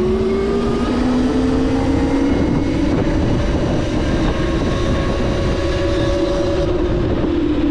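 Electric motorbike's motor whining as it rides, the pitch settling after climbing with speed and easing slightly near the end, with wind buffeting the microphone.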